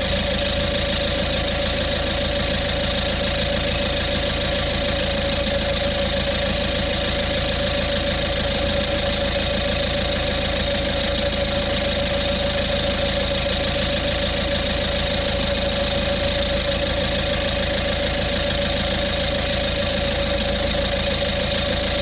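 Auto XS 12-volt digital tyre inflator's compressor running steadily at a constant pitch, pumping air into a tyre.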